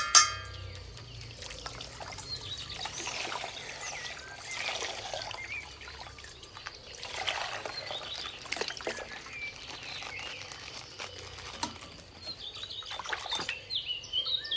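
Coloured water trickling and splashing out of a popped plastic water pack as it is handled, coming in irregular waves with faint crinkling clicks.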